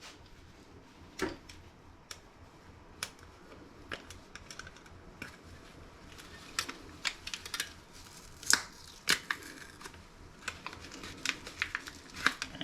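Scattered small clicks and taps of plastic and metal laptop parts being handled during disassembly, with a quick run of clicks near the end.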